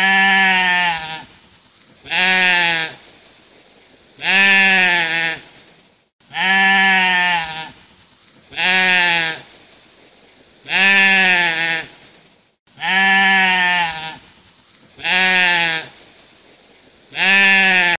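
Goat bleating over and over: about nine bleats, each about a second long, coming evenly about every two seconds.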